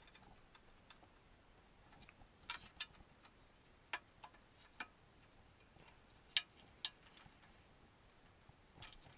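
Light, irregular clicks and taps of a screwdriver and wrench working small screws and nuts into a model truck's chassis plates, about eight in all.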